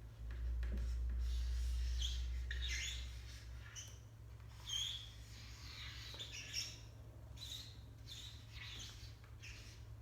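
Pen strokes squeaking on paper: many short, high squeaks as lines of a drawing are made. A low rumble sits under them for the first few seconds.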